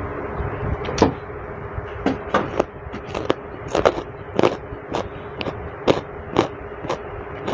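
Chewing sounds from a person eating roasted duck and vegetables: a run of sharp, wet mouth clicks and smacks, about one or two a second, over a steady hum.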